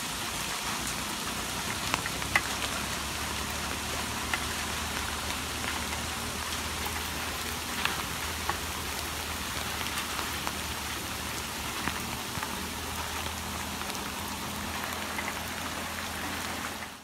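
Steady rain falling on leaves and open water: an even hiss with scattered sharper drop ticks.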